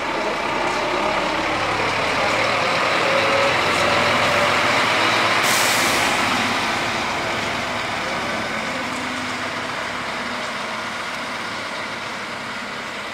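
Scania K360 bus running as it manoeuvres, growing louder toward the middle and then slowly fading, with a short sharp hiss of compressed air about five and a half seconds in.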